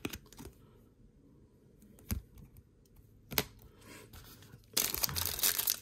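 A few light clicks of trading cards and a plastic top loader being handled. Then, close to five seconds in, the loud crinkling and tearing of a foil card-pack wrapper being ripped open.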